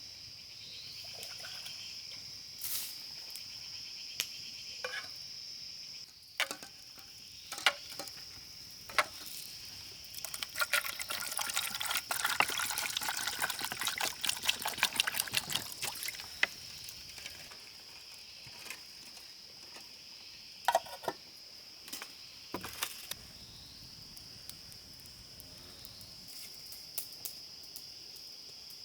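Insects shrill steadily at one high pitch throughout. Scattered clicks and knocks sound over them, with a dense run of crackling clicks for about six seconds in the middle.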